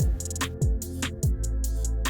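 Background electronic music with a steady beat: a deep kick drum and crisp hi-hats over a sustained bass.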